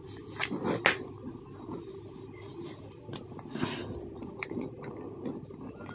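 Faint small clicks and light rubbing from hands working the wires of a string of serial light bulbs, joining the leads where a broken bulb has been taken out.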